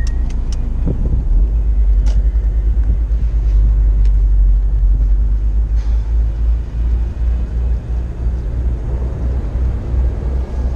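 Honda S2000 driving slowly with its roof down: a steady low rumble of engine and road noise, with a few faint clicks.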